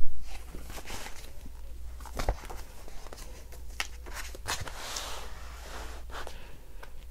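Plastic cover and paper pages of a disc-bound planner being flipped and handled: a knock right at the start, then scattered clicks and rustles, with a longer paper swish about five seconds in.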